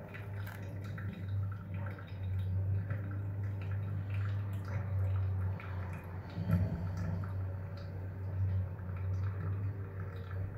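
Hot water poured in a thin stream from a gooseneck kettle into a V60 paper filter of fresh coffee grounds, then stopping while the wet coffee bed drains with small drips. A steady low hum runs underneath, and a soft knock comes about six and a half seconds in.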